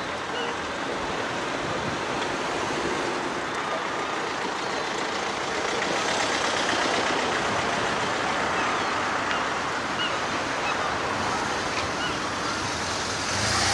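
Steady road-traffic noise from cars on a seafront road, swelling with a low rumble near the end as a vehicle passes close.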